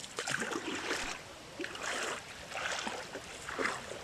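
Water splashing and sloshing in repeated short bursts, about one a second.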